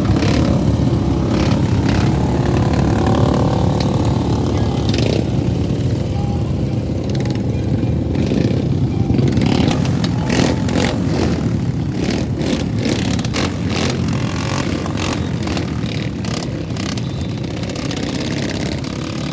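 Several motorcycle engines running together with some revving, a dense steady engine noise, joined by many short sharp clicks or knocks in the second half.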